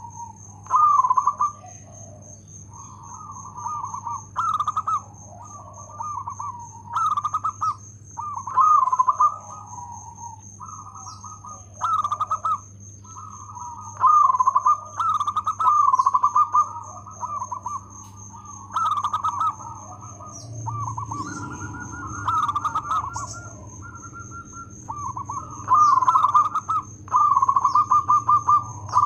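Zebra dove (perkutut) cooing: short, staccato trilled phrases repeated every second or two with brief pauses between them.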